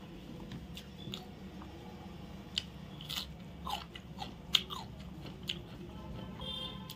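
Close-up mouth sounds of eating chicken biryani with crisp cucumber: wet chewing, with a run of short crunchy bites between about two and a half and five and a half seconds in, over a steady low hum.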